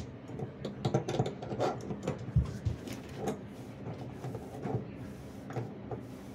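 Metal pliers clicking and scraping in a bathtub drain's crossbars as a new drain flange is twisted down into its threads, with one dull thump about two and a half seconds in.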